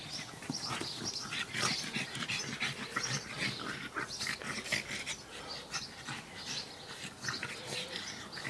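Two pugs play-fighting, making a steady run of short, rapid pig-like grunts and snorts.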